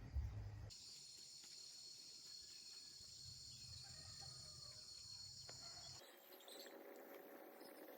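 Faint, steady, high-pitched chorus of insects that starts suddenly about a second in and cuts off about six seconds in.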